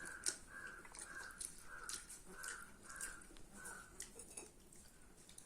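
A bird calling over and over, about two short calls a second, stopping a little before the end. Scattered soft clicks of eating sound over it.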